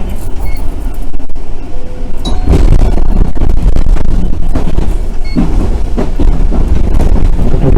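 Randen electric train running on its rails: a steady low rumble of wheels and motors that grows louder about two seconds in.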